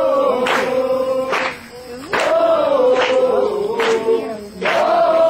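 A group of voices singing a Portuguese worship song in unison, holding long notes, with sharp strokes keeping an even beat a little faster than once a second.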